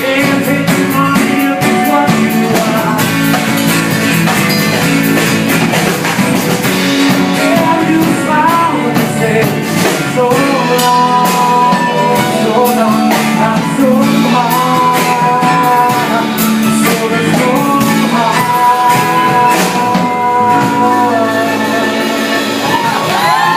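Live rock band playing a song, guitar and drums, with long held melody notes over the band through the middle.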